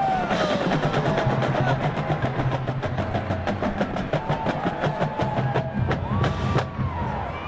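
Marching band drumline playing a fast cadence: rapid snare and tenor drum strokes over a steady pulse of bass drums, with crash cymbals.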